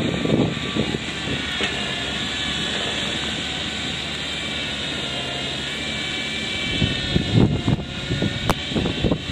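Kubota B3200 compact tractor's three-cylinder diesel engine running steadily while driving its front snowblower through slush, a constant drone. Irregular rumbling swells come near the start and again about seven to nine seconds in.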